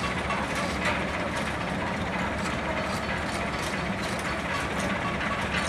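Steady machinery drone in a ship dry dock, with irregular metallic clicks and clanks over it.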